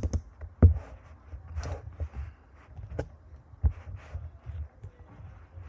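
Low rumbling room noise with a few sharp clicks or knocks, the loudest about half a second in and two more around three and three and a half seconds in.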